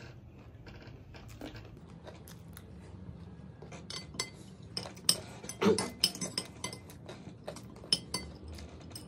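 Metal spoons clinking and scraping on ceramic plates as chatpate is scooped up and eaten: a scatter of sharp clinks that grow busier in the second half, the loudest about five to six seconds in.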